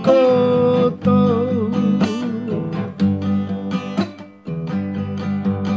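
A man singing a Māori-language song to his own strummed acoustic guitar, holding the word 'koutou' on a long note that wavers for about two and a half seconds. The guitar then strums on alone, with a short dip about four seconds in.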